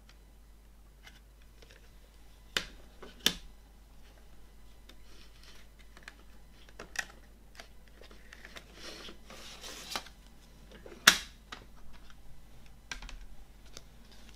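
Plastic CD jewel case being handled and opened: two sharp plastic clicks about two and a half and three seconds in, a paper sliding rustle around nine to ten seconds as the booklet is drawn out, and a louder single click about eleven seconds in.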